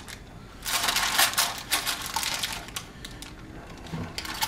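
Small metal screws and lock hardware clicking and rattling as they are handled. A busy flurry of clicks starts about a second in and thins out after about three seconds.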